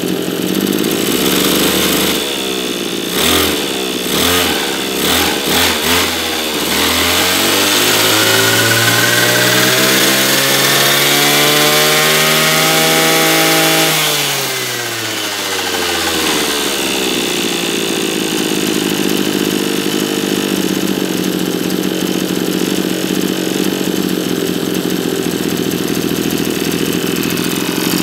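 Maruyama KC26MX brush cutter's 26cc two-stroke engine idling, blipped several times in quick succession, then revved up to high speed, held for a few seconds and let fall back to a steady idle. The quick rise on each squeeze of the throttle shows a responsive engine.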